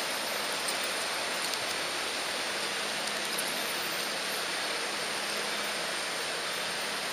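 H0-scale model train rolling along the track, heard from the camera riding on it: a steady rushing hiss of wheels on rails with a faint steady hum underneath.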